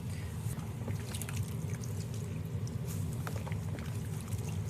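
Bath water sloshing and dripping as a washcloth wipes a doll in a bubble bath, with scattered small splashes and drips over a steady low hum.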